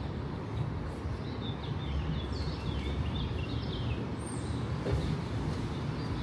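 City street background noise: a steady low rumble of the downtown street, with a small bird chirping a quick run of short notes about two to four seconds in.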